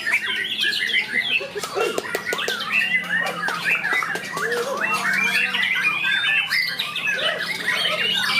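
Several white-rumped shamas (murai batu) singing at once: a dense, overlapping mix of quick whistles, trills and harsh chattering calls that never pauses.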